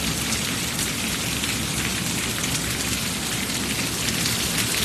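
Heavy rain pouring down, a dense, steady hiss full of the fine patter of drops.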